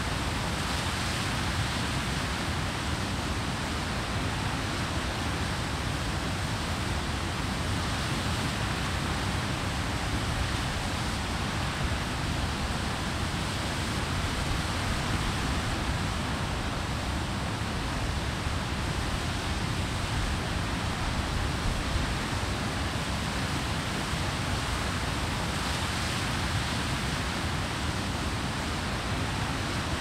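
Water pouring over a weir: a steady, even rush of falling water with no separate splashes or changes.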